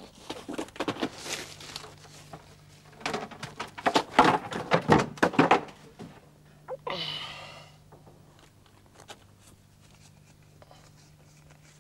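Rustling and crackling of plastic bags and paper being handled, with scattered clicks and knocks, loudest a few seconds in. About seven seconds in comes a brief vocal sound, and then only a faint low hum.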